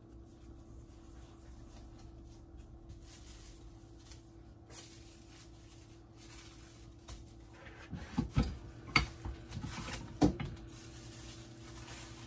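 Faint steady hum, then a short run of knocks and scrapes about eight seconds in: a corn tortilla being handled on a stovetop comal.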